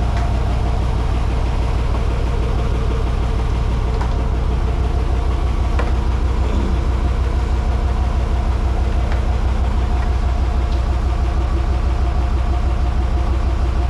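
An engine idling steadily with a deep, even throb, with a few light knocks over it.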